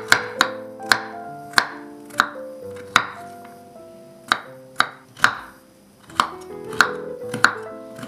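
A kitchen knife cutting raw pumpkin into small cubes, each cut ending in a sharp tap of the blade on a wooden cutting board, about a dozen taps at an uneven pace with a short pause in the middle. Instrumental background music plays underneath.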